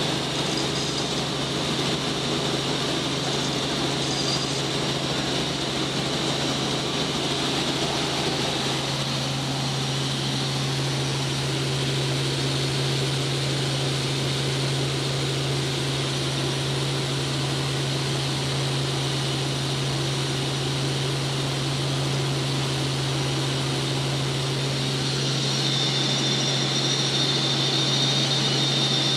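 Helicopter in flight heard from inside the cabin: a steady low drone over an even rushing hiss. A high whine grows a little louder near the end.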